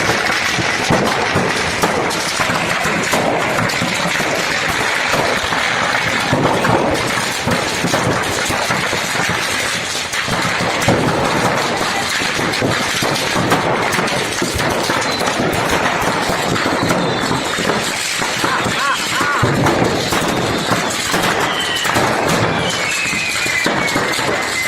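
Crowd voices talking and shouting over dense crackling and popping, typical of firecrackers going off in a burning fireworks shop. A long falling whistle comes in near the end.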